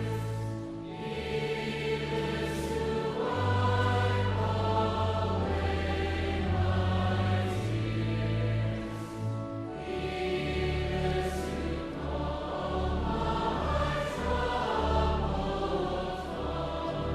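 A choir singing a hymn in long, sustained phrases over held deep bass notes, with short breaks between phrases about a second in and again around nine seconds later.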